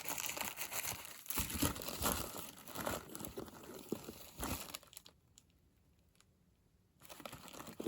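Crinkling and rustling of wrapping as an antique wooden jigsaw puzzle box is opened and its pieces handled, with small clicks among the rustle. It stops for about two seconds, then starts again near the end.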